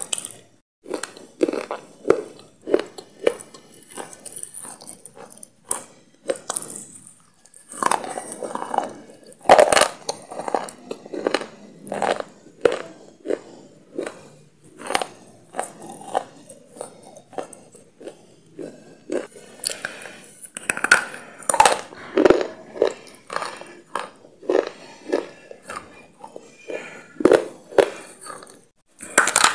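Close-miked biting and chewing of a hard, crunchy food: sharp crunches every second or so, with quieter chewing between them.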